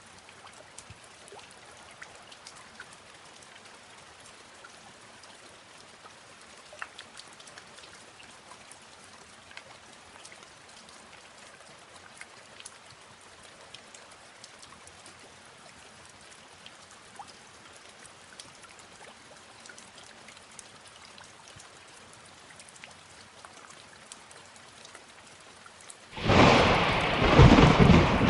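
Light rain with scattered drops falling, then a loud, sudden crack of thunder near the end.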